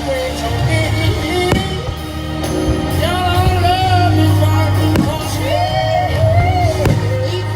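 Pop song with a singer, carried on a steady beat, with three sharp bangs of fireworks bursting through it.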